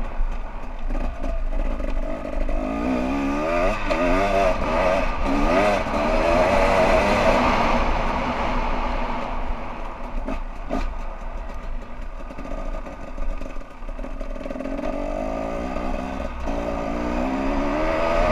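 Dirt bike engine revving as it rides, its pitch climbing in several rising sweeps with drops between them as it shifts up through the gears. Wind buffets the microphone underneath.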